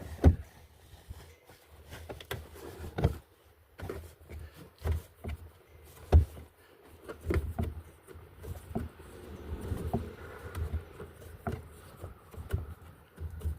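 Scattered clicks, knocks and rustling of hands working plastic trunk-trim fasteners and the trim liner loose in a car trunk.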